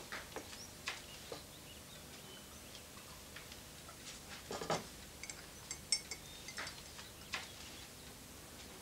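Faint, irregularly spaced small clicks and light clinks, with a slightly louder rustling click about four and a half seconds in and a sharp clink near six seconds.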